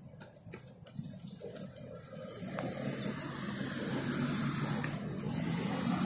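A car driving along the adjacent street, its tyre and engine noise growing steadily louder from about two seconds in as it approaches.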